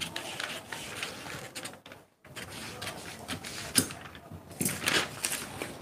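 Scissors cutting through a paper sewing pattern piece, with the paper being handled: irregular rustling and crisp snips, a short pause about two seconds in, and the sharpest snips a little past the middle.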